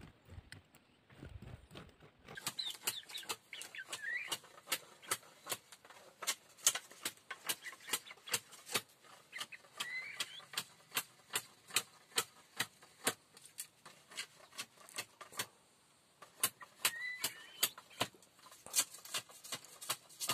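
Sharp irregular clicks or taps, a few a second, with a short chirping bird call heard about three times.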